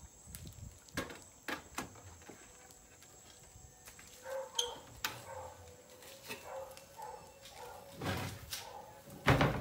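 Wooden planks of a makeshift door knocking and scraping as they are shifted and someone squeezes through, with scattered clicks and a heavy thump near the end.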